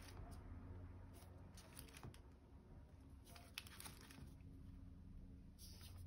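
Faint rustling and light clicks of die-cut paper stickers being leafed through by hand, over a low steady hum.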